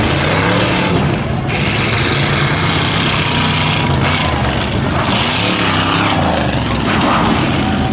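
Tuff truck race truck's engine revving hard, its pitch rising and falling over and over as the stripped SUV is driven through dirt humps on the course.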